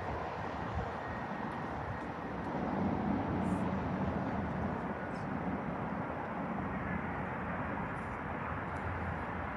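Steady jet engine noise from an Airbus A350's Rolls-Royce Trent XWB turbofans, an even rushing sound that swells slightly about three seconds in.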